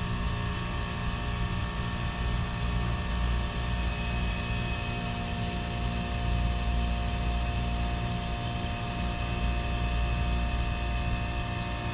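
Trane Odyssey commercial heat pump running steadily: a low machine hum with several steady tones above it.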